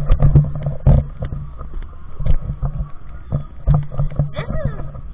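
Handling noise from a handheld camera being swung around inside a moving truck: repeated knocks and rubs over the truck's low running hum, which comes and goes.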